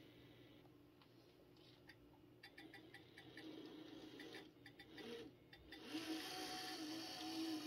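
N-scale model train rolling slowly over the layout's track: a run of faint, quick clicks, about five or six a second, from the wheels over rail joints and turnouts. About six seconds in, the locomotive's electric motor and gears start a steady hum that grows louder.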